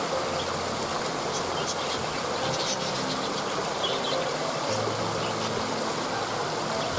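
Steady rush of a waterfall, with scattered short, high bird chirps over it.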